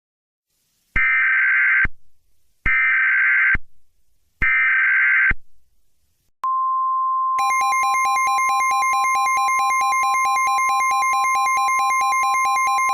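Emergency Alert System tones for a tornado warning. Three short bursts of screeching digital header data come first, then a steady alert tone starts at about six seconds. About a second later a rapidly alternating second tone joins it.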